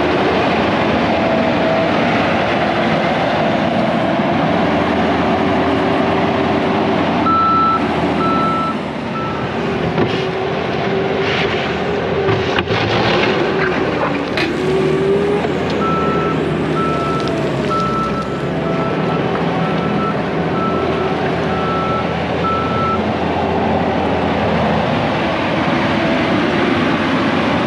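Hyundai HT100V compact track loader's diesel engine running steadily under work, its backup alarm beeping in two stretches: a few beeps about seven seconds in, then a longer run of beeps from about sixteen seconds in. A few sharp clanks come around the middle.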